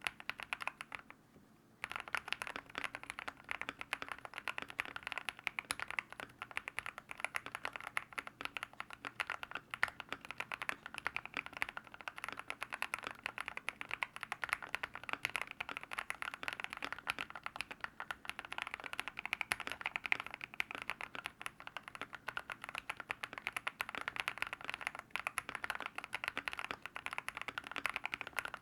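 Typing on a mechanical keyboard with linear switches, fast and continuous keystrokes. It starts after a brief pause about two seconds in.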